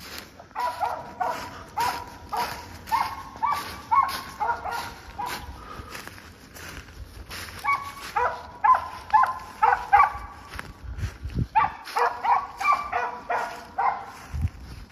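Squirrel-hunting dog barking over and over, about two barks a second, in three runs with short pauses between them.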